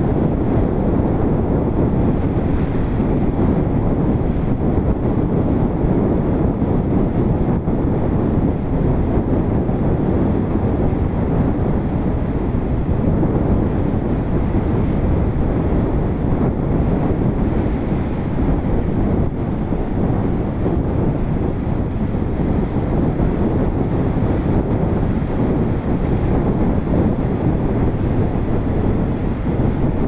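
Ocean surf with a steady, deep rushing roar and no separate crashes standing out.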